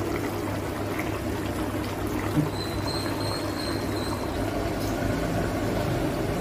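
Thick egg masala gravy simmering in a stainless steel pan over a gas flame: a steady bubbling hiss, with a single soft knock about two and a half seconds in.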